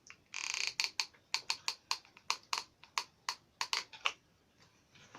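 Hot glue gun in use: a short rasp, then a run of sharp, irregular clicks, about four a second, as the trigger is squeezed repeatedly to feed glue. The clicks stop a little after four seconds in.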